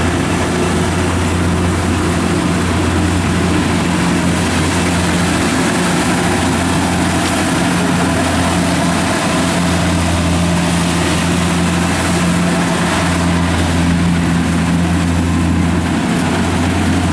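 Kubota rice combine harvester's diesel engine running steadily at constant speed, a loud, even drone.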